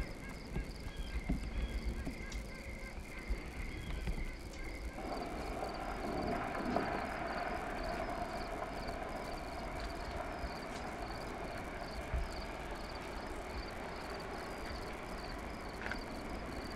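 Outdoor ambience: an insect chirping faintly and regularly, about two to three times a second, over a low wind rumble. About five seconds in, a steady broad rushing noise comes in and holds.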